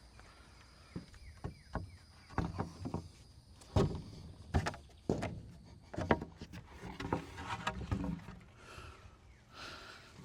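Irregular knocks and thumps, a dozen or so, as wooden decking boards are worked into place on a shed floor.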